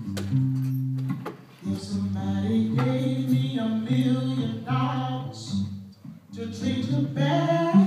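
Blues band playing a song, with guitar over low held bass notes and a woman singing from about two seconds in. The music drops off briefly near the start and again near the end.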